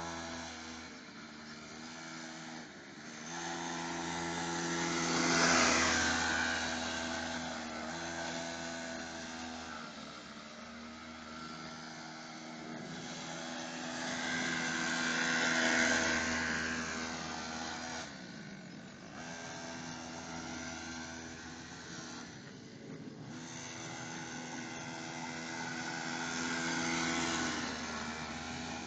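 Small engine of a cheap Chinese mini quad, fitted with an added second exhaust silencer, running and revving as it is ridden round in slides, swelling louder three times and easing off between.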